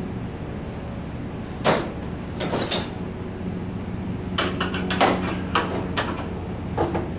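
Scattered metal knocks and rattles from parts of a VW Beetle door being handled and worked loose: one knock, then a pair, then a quick run of them, over a steady low hum.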